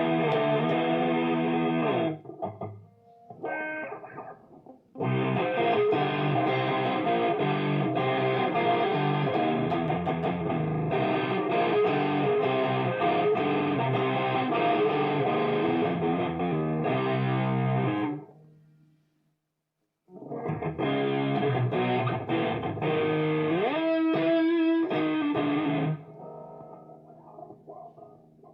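Electric guitar played with distortion through a homemade guitar amplifier and a PA loudspeaker: sustained chords and riffs, breaking off briefly about two seconds in, falling silent for about two seconds past the middle, and going quieter near the end.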